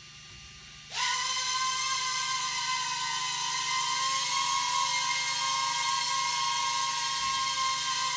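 SELFLY mini quadcopter's four small motors and propellers spinning up about a second in, with a quick rise in pitch, then a steady high whine as it lifts off and hovers.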